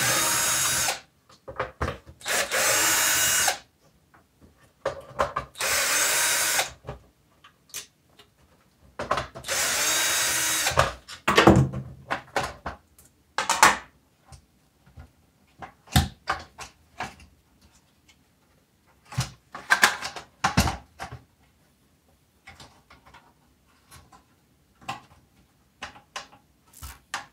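Cordless drill/driver spinning in four short runs of one to two seconds each in the first eleven seconds, backing out the screws of a power supply's metal base plate. After that come scattered sharp clicks and knocks as the loose screws and the metal case are handled.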